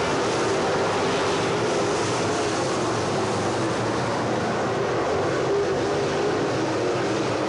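A pack of dirt late model race cars running laps together, their V8 engines blending into one steady, wavering drone heard from the grandstand.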